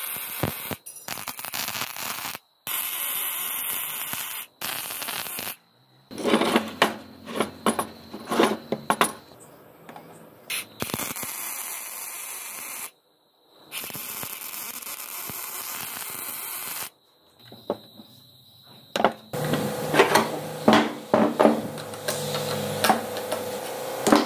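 MIG welder arc crackling and hissing in several runs of a few seconds each, each stopping abruptly, with sharp metallic knocks and clatter between the runs.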